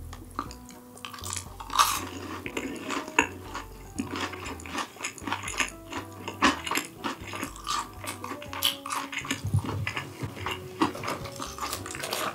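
Cutlery clinking and scraping against dishes in a quick, irregular run of short clicks.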